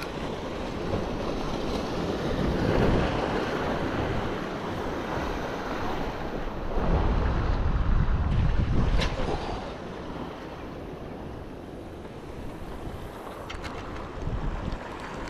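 Wind buffeting the microphone over the sound of sea surf, gusting louder about two seconds in and again around seven to nine seconds in. A couple of light clicks come near the middle and near the end.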